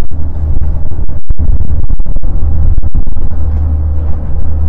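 Strong wind buffeting the microphone: a loud, continuous low rumble with a brief dropout about a second in.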